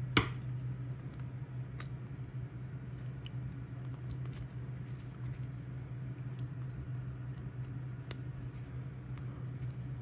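Small handling sounds of a plastic power-cord plug being wired: a sharp click just after the start, then a few faint clicks and scratches as a screwdriver works a terminal screw, over a steady low hum.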